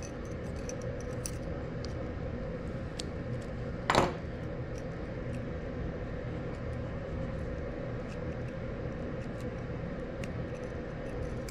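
Small metallic clicks of split-ring pliers and a split ring as a treble hook is worked onto a spoon lure, with one louder click about four seconds in, over a steady low hum.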